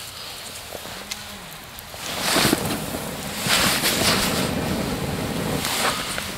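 A person blowing hard on the glowing embers of a small twig campfire. About two seconds in come three long breaths of rushing air, close to the microphone.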